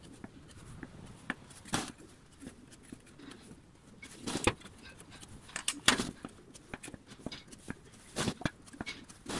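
A few scattered light taps and knocks as a wooden measuring stick and a marker are handled against a steel pail, the loudest about halfway through.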